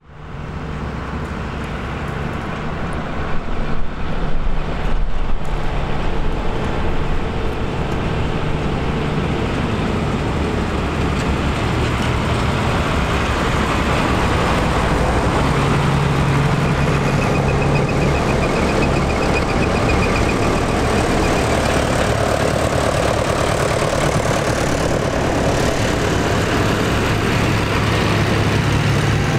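Tractor engines running steadily, growing louder over the first several seconds.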